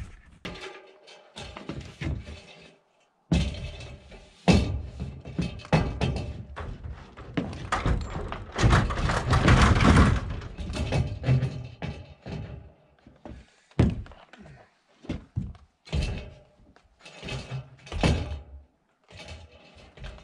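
Irregular knocks and thuds of carpentry work, wood blocking being fitted and fastened between roof rafters, coming in choppy stretches with short breaks.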